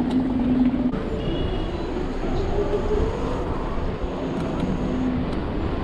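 Steady wind and road noise of a Dualtron Thunder electric scooter riding through city traffic, with a low hum in the first second and a brief high double tone about a second in.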